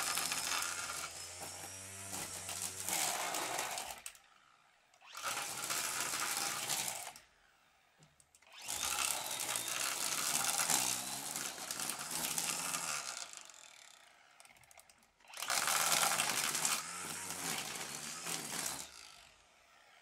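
Brush cutter (string trimmer) running in four bursts of a few seconds each, with short pauses between them; its pitch rises and falls within the bursts, and the last one dies away near the end.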